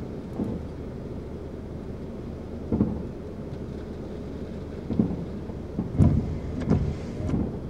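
Steady road rumble inside a moving car, broken by irregular low thumps of gusty wind buffeting, bunched and loudest in the last few seconds.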